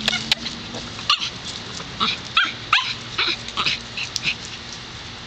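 Dogs giving a string of short, high yips and barks, about ten in all, thinning out after about four seconds.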